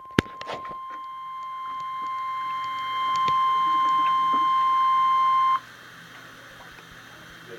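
Weather radio alert tone: NOAA Weather Radio's steady single-pitch warning alarm tone, played through a radio's speaker, announcing an emergency alert. It grows louder over the first few seconds, then cuts off suddenly about five and a half seconds in, leaving only a faint hum.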